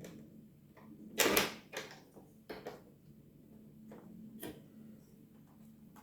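A multi-pin Zorro edge connector being pressed and wiggled into the holes of a circuit board, with a short scrape about a second in, then a few light clicks and taps. It resists going in, because some of its pins seem bent.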